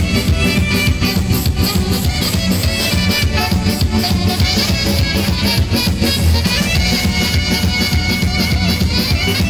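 Live band dance music with a fast, steady drum-kit beat, played on a Korg Pa1000 arranger keyboard with saxophone.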